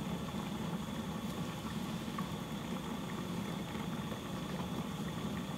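Spicy mackerel and radish braise bubbling at a steady boil in a pot under a glass lid. These are the final minute or two of boiling that finish the dish.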